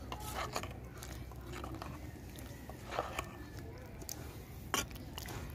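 Metal ladle stirring a chunky mung bean and vegetable stew in a metal pot, with a few short scrapes and knocks against the pot, the sharpest about three seconds in and near the end. A low steady rumble underlies it.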